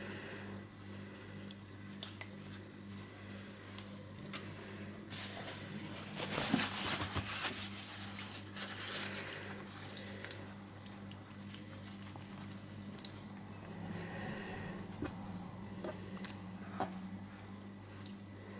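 Tissue rubbing and wiping around the heating plate in the base of a Tommee Tippee electric steriliser, clearing limescale loosened by vinegar. Soft scrubbing strokes come in patches, loudest about six to eight seconds in, over a low steady hum.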